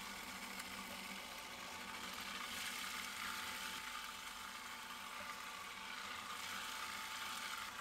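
KitchenAid food processor motor running steadily with a low whir, blending a walnut, garlic and olive oil paste.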